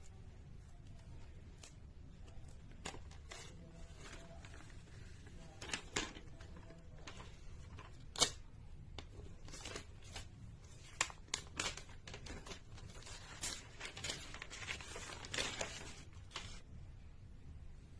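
iPad box and its paper and plastic wrapping being handled and torn open: irregular rustling, tearing and sharp clicks, the sharpest about eight seconds in and a thicker run of rustling near the end.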